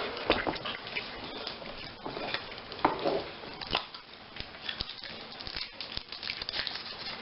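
Crinkling of Kinder Surprise eggs' foil wrappers, with scattered clicks and rustles of handling as the chocolate eggs are unwrapped and opened.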